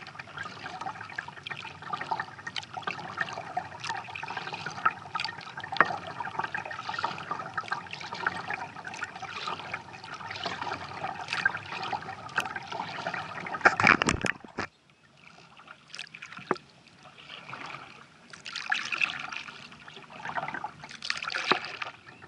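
Kayak paddle working the water: splashing and trickling as the blades dip and drip, with many small splashes. About two-thirds in it drops off suddenly, leaving quieter, separate splashes and drips.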